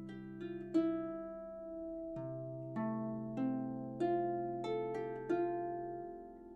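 Background music: a gentle plucked-string melody, a new note about every half second, over held low notes.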